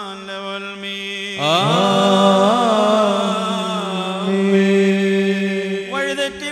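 Male voices singing a slow liturgical chant of the Syriac-rite Holy Qurbana, with long held, wavering notes. A second voice slides up into the chant about a second and a half in.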